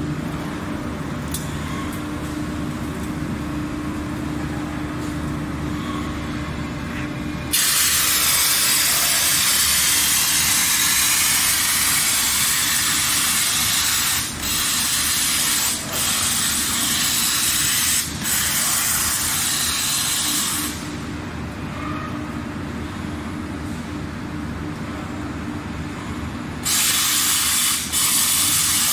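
Toy stuffing machine running: a steady machine hum, then about seven seconds in a loud, even air hiss as fibre filling is blown out through a filling nozzle. The hiss lasts about thirteen seconds with a few short breaks, stops, and starts again near the end.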